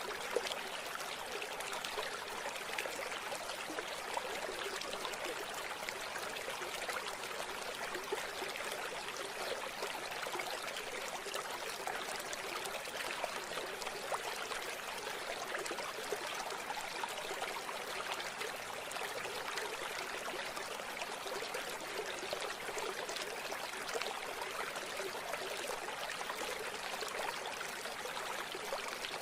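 A small river or stream flowing over stones, a steady babbling and trickling rush of water with many small splashes.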